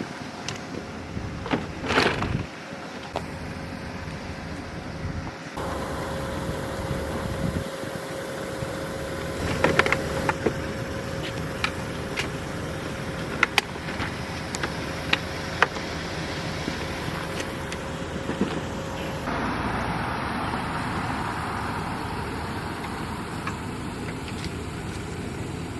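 A vehicle running with a steady engine hum, with scattered sharp clicks and knocks over it. A faint steady tone runs through the middle, and the background changes abruptly a few times.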